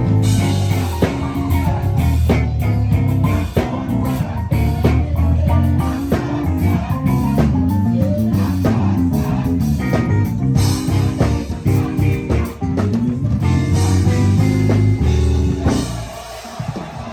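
Live band playing an up-tempo groove on drum kit, bass and guitar, with a busy moving bass line under steady drum hits. The playing thins out and drops in level near the end.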